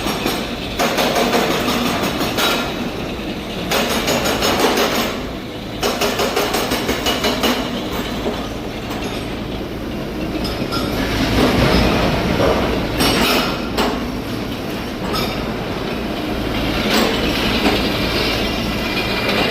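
Rock drilling rig boring into rock, its percussive hammer rattling rapidly and continuously, with a few louder swells along the way.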